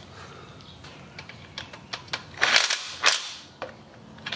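Cordless impact tool running a 10 mm bolt tight on the engine in two short bursts, about two and a half and three seconds in, after a few light clicks.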